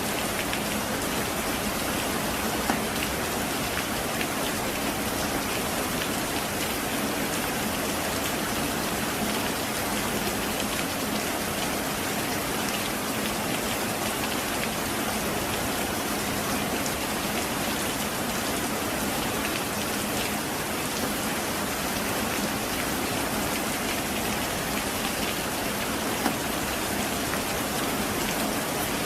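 Heavy rain falling steadily: a dense, even hiss of drops with many small ticks. It has a couple of louder single clicks, one a few seconds in and one near the end.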